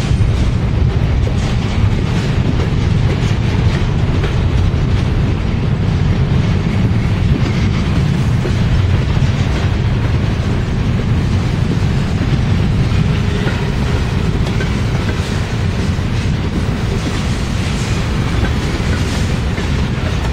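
Freight train cars rolling steadily past: a continuous low rumble of steel wheels on rail, with irregular clicking as the wheels cross rail joints.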